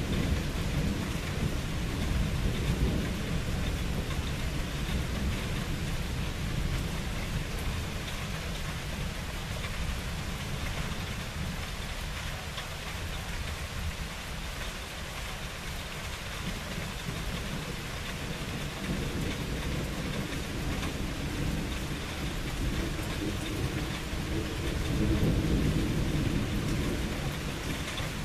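Rain falling steadily during a thunderstorm, with low rolling thunder rumbling at the start, fading, and building again near the end.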